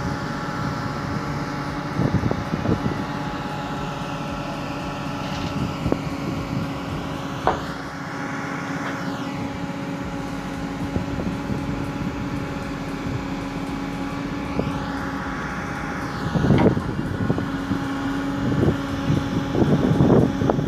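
Hydraulic excavator engine running steadily, with a higher whine that dips and rises twice as the machine works. A sharp knock comes about halfway through, and louder knocks and clatter near the end, as the bucket and sling work against a large steel cylinder.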